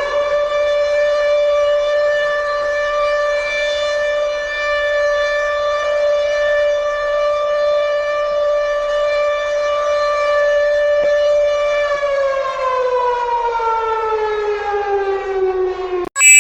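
Civil defense siren holding one steady wail, then winding down slowly in pitch from about twelve seconds in and cutting off near the end. A chopped electronic alert tone starts just as it stops.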